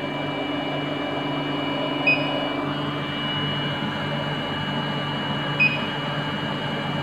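Semi-automatic biochemistry analyzer humming steadily as it aspirates distilled water to rinse its flow cell, its pump note fading out about three seconds in. Two short electronic beeps sound, about two seconds in and again near six seconds.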